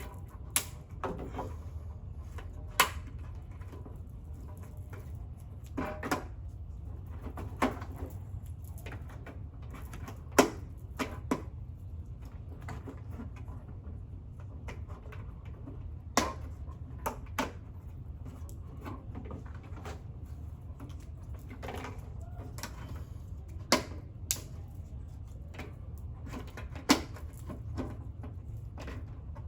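Irregular sharp clicks and knocks of plastic Tower Garden parts being handled, net pots pushed and slid into the tower's planting ports, over a steady low hum.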